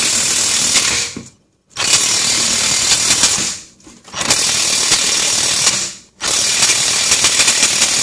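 Chicago Electric 18V cordless impact wrench hammering on a wheel hub assembly bolt, the trigger pulsed in bursts of about two seconds with short pauses between, as the tight bolt nears breaking loose.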